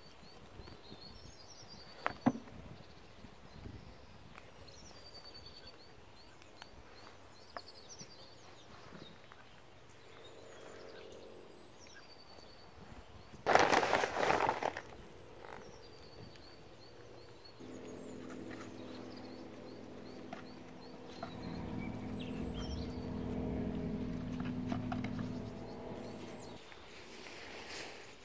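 Outdoor garden ambience with small birds chirping now and then. A short burst of rustling noise comes about halfway through. In the second half a steady low hum grows louder and then cuts off suddenly near the end.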